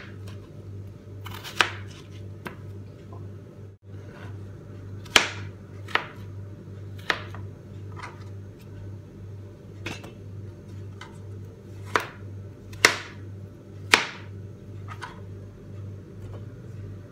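Knife cutting vegetables on a board: a dozen or so sharp, irregular chops, over a steady low hum.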